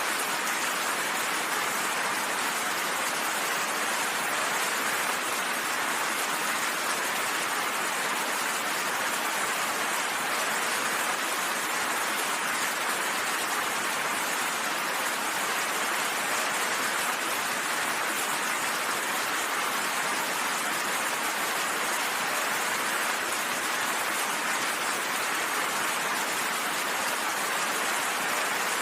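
Steady heavy rain falling, an even hiss with no thunder in this stretch.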